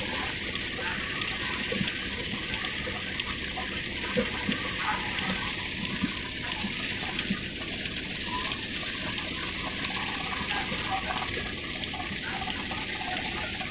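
Belt-driven rag-shredding machine running, tearing old cloth into stuffing for mattresses and quilts: a steady rushing hiss, with a few faint short chirps scattered through it.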